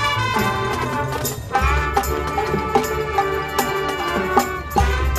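Marching band playing: brass holding chords over drumline hits that come about twice a second, with heavy low bass hits near the start and again about a second and a half in.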